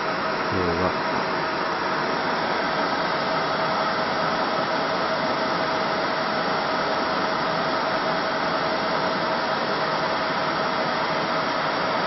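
Steady fan hum and hiss with one constant mid-pitched tone from a running fiber laser marking machine, with no change in level.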